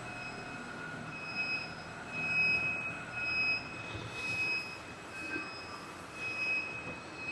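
Collaborative robot arm's joint servo motors whining as the arm moves, a high whine that swells and fades in a string of short moves about once a second.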